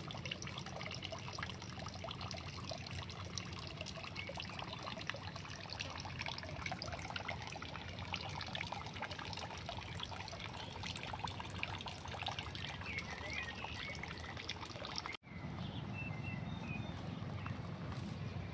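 A thin stream of water from a bamboo spout (kakei) trickling into a stone basin, a steady splashing trickle. A small bird chirps briefly a few times, and about fifteen seconds in the trickle gives way to a lower rumbling outdoor background.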